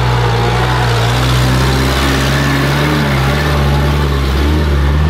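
A motor vehicle's engine running steadily at an even pitch, with small rises and dips.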